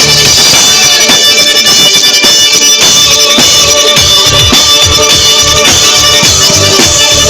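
Lively folk music with a held melody over a drone, with drum strikes beating along to it.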